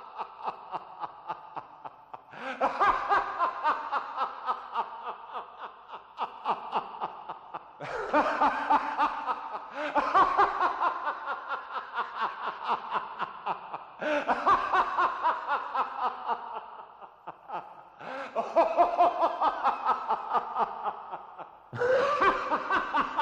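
A person laughing hard, a long run of rapid 'ha-ha-ha' at about four beats a second. It comes in bouts of a few seconds, each starting loud and trailing off.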